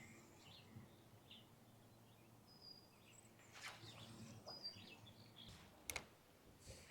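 Near silence: faint outdoor ambience with a few faint, short bird chirps and a couple of soft clicks near the end.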